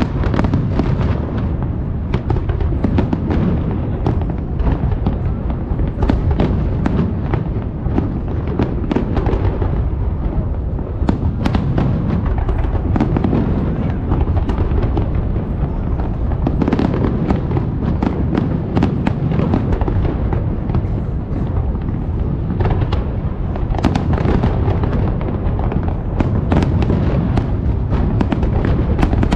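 Fireworks bursting in rapid, overlapping succession: a continuous barrage of sharp bangs and crackles over a steady low rumble of booms.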